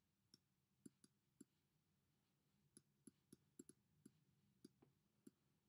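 Faint, irregular clicks of a stylus tip tapping a tablet screen while handwriting, about a dozen in all, with a pause of a little over a second about a second and a half in.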